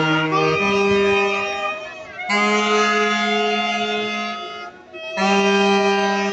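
A small group of saxophones playing a slow tune in long held notes, the phrases broken by short breaks about two seconds and about five seconds in.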